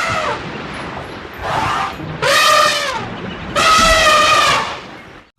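Elephant trumpeting, a sound effect: four brassy trumpet calls, the last two longest and loudest.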